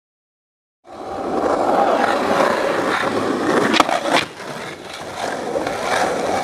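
Skateboard wheels rolling on asphalt, starting about a second in, with two sharp clacks of the board close together near the middle before the rolling picks up again.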